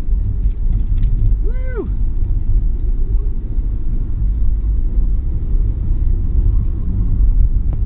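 Cabin noise of an Opel Corsa driven hard on a race track: a steady low rumble of engine, tyres and road heard from inside the car.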